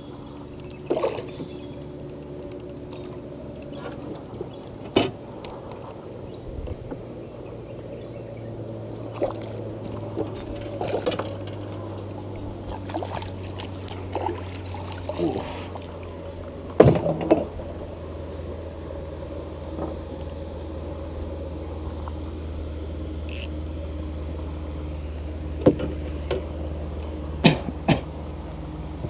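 Insects droning steadily at a high, even pitch, with scattered sharp knocks and clatters from gear being handled in a wooden boat, the loudest about halfway through and near the end.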